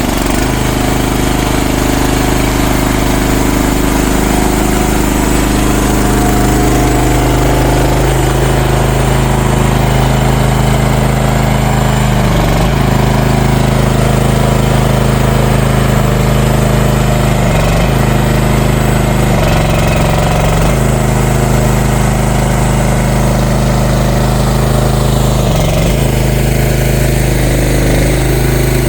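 CFG MX15RX mini excavator's engine running steadily, its pitch sagging briefly about four times as the machine is worked.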